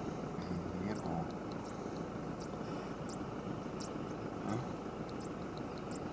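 Open-air bush ambience: a steady low rumble with short, high chirps from small birds, about two a second. The distant bathing elephant is not heard.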